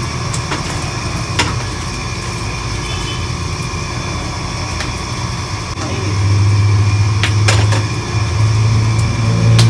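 Steady low mechanical hum, like a motor running, that grows louder about six seconds in, with a few sharp clicks over it.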